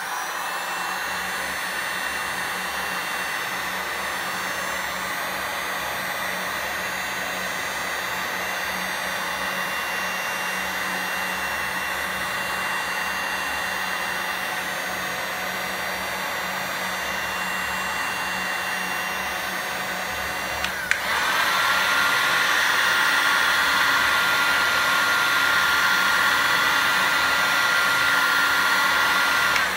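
Handheld electric heat gun blowing hot air steadily with a fan whine, aimed at a sticker label to soften its adhesive for peeling. After a click about two-thirds of the way through, it runs louder with a lower-pitched whine.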